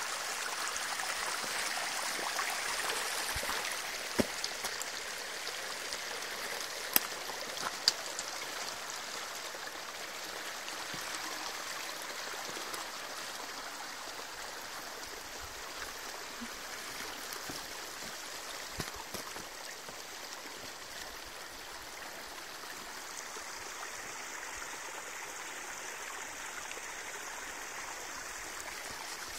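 Shallow stream of water running over a muddy track, a steady rushing, with a few sharp clicks in the first eight seconds.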